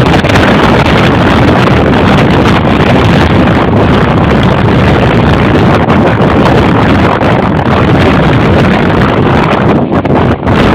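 Loud, steady wind buffeting the microphone, a dense rushing roar that dips briefly near the end.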